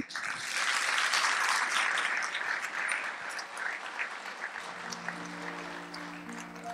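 Audience applauding, loudest in the first couple of seconds and then tapering off. About four and a half seconds in, a piano starts sustained notes underneath.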